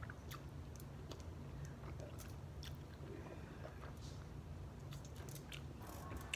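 A person chewing a mouthful of spicy beef noodles close to the microphone: soft, irregular mouth clicks and smacks over a faint steady low hum.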